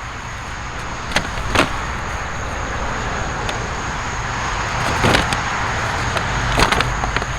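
Soil and roots in a raised potato bed being dug through by hand, with several short sharp knocks, over a steady low background rumble.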